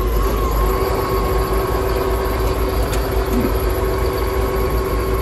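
Tractor engine running, heard from inside the cab: a steady low drone with a steady whine above it.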